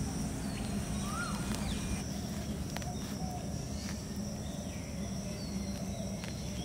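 Forest ambience: a steady insect drone with a few short bird chirps, and a few faint ticks as a knife prises up a clod of moss-covered soil.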